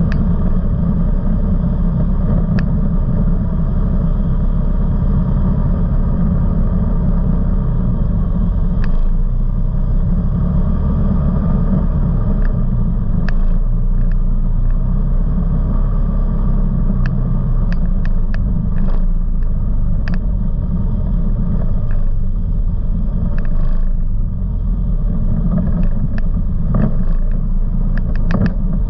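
Off-road vehicle engine running steadily while riding along a trail, heard close up as a low drone. Scattered sharp clicks and knocks come through it.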